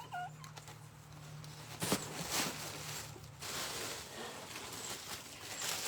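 Rustling with a few light clicks and knocks as craft supplies are handled, over a faint low hum that fades out about halfway through.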